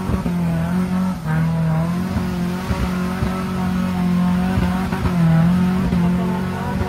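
Off-road pickup truck's engine held at high, steady revs as it claws through mud, the pitch dipping briefly a couple of times, with a few knocks from the truck.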